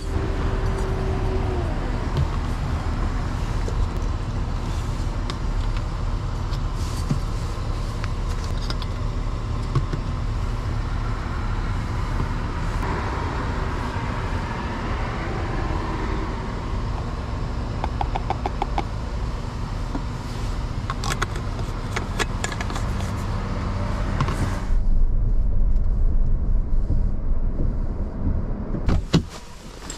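Small boat's two-stroke outboard motor running steadily under way, with wind and water noise. It gets louder for a few seconds near the end.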